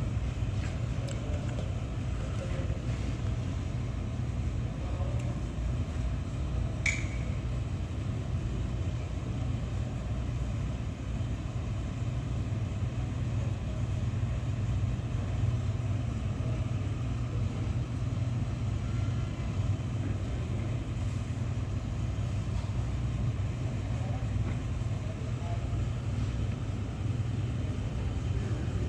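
Steady low rumble throughout, with one brief sharp high sound about seven seconds in.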